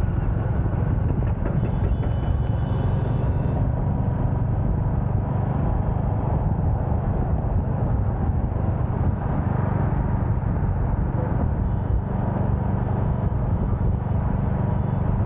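Royal Enfield Hunter 350's 349 cc single-cylinder engine running steadily, its sound heaviest in the low end.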